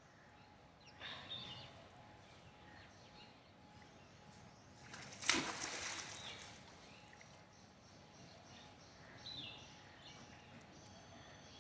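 Outdoor ambience with short high bird chirps about a second in and again near the end. A sudden loud scuffling noise comes a little before the middle and fades within about a second, at the moment a monkey scrambles on the yard wall.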